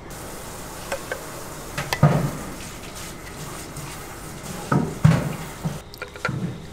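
Metal serving utensils knocking and scraping against stainless-steel buffet bowls and ceramic dishes: a few sharp clinks, loudest about two seconds in and again about five seconds in.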